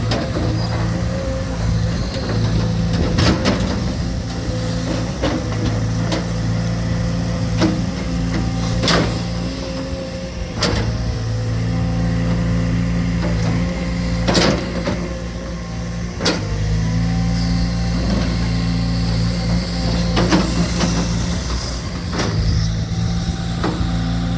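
Heavy construction machinery running, its engine a steady hum that eases off and picks up again a couple of times, with scattered sharp knocks and clanks.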